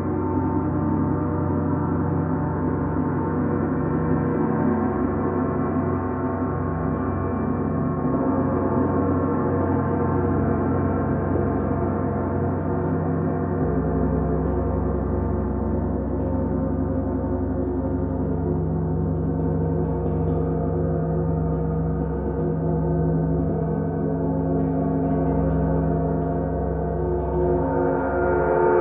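Several large bronze gongs sounding together in a sustained wash of overlapping, shimmering tones, kept going by soft-mallet strokes. About halfway through, a stroke on a big gong adds a deep low hum, and near the end the sound grows brighter.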